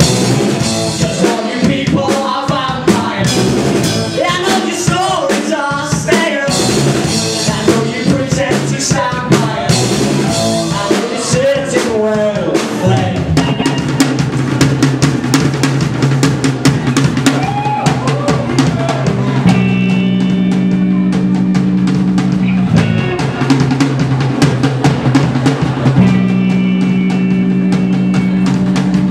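Live indie rock band playing: a singer over electric guitar and drum kit, then the vocals stop about halfway through and the band plays on with drums and long held guitar and bass notes.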